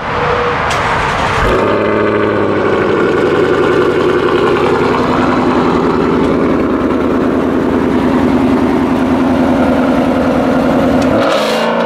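Ford Mustang's engine starting up, catching with a heavy thump about a second and a half in, then idling steadily and stopping near the end.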